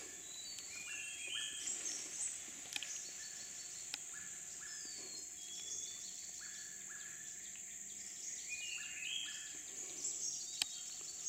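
Rainforest chorus: a steady high-pitched insect drone with many short bird whistles and chirps over it, and a few sharp clicks.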